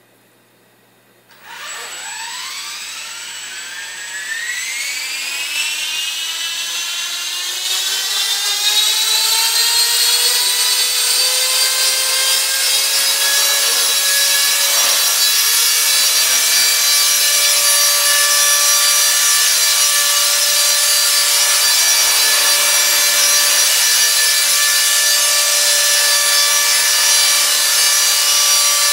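E-flite Blade SR electric RC helicopter starting up: its motor and rotor come on about a second and a half in and whine up steadily in pitch over several seconds as the rotor spools up, then settle into a steady high whine as it lifts off and hovers.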